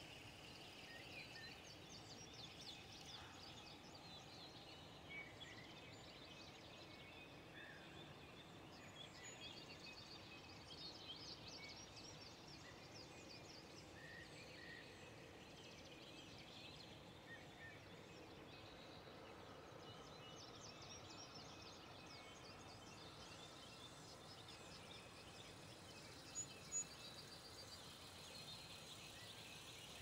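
Faint dawn chorus: many small birds chirping and trilling over a steady low background hum, with two short clicks near the end.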